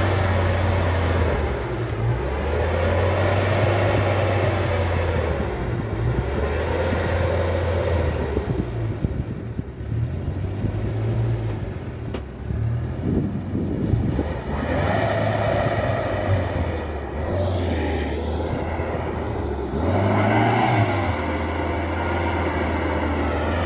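UAZ Bukhanka 4x4 van's engine pulling through deep meltwater and mud, its revs rising and falling several times as the driver works the throttle.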